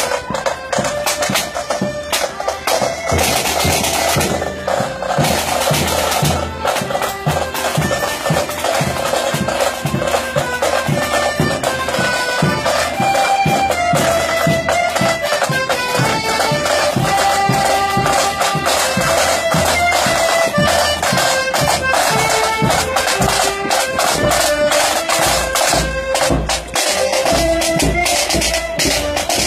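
Pipe band playing: bagpipes carrying a marching tune over drums beating steadily.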